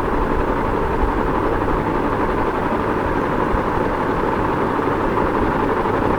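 Ceiling fan running steadily: an even whoosh of moving air over a low motor hum.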